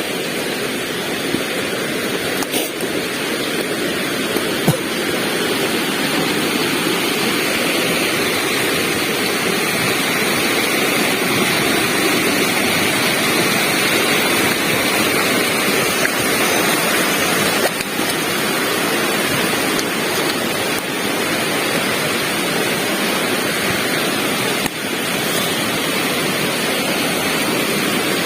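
Waterfall rushing: a loud, steady noise of falling water, with a few faint knocks.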